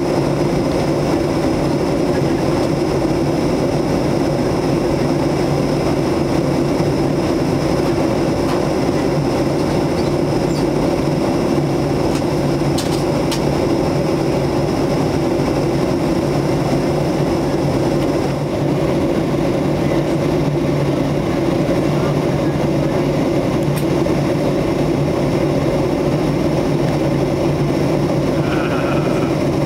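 Steady drone inside a jet airliner's cabin during the approach: engine and airflow noise, with a thin high whine that drops away about two-thirds of the way through.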